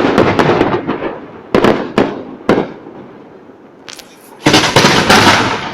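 Aerial fireworks bursting. A quick run of crackling bangs opens, three single sharp bangs follow about half a second apart, and a dense burst of crackle comes near the end.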